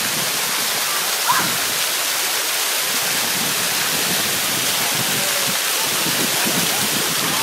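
Steady rush of water pouring and splashing down from a pool fountain.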